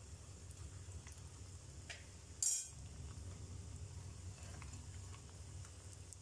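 Vermicelli-coated kilikoodu balls deep-frying in oil, a faint steady sizzle with small scattered crackles. One short, sharp clink about two and a half seconds in stands out as the loudest sound.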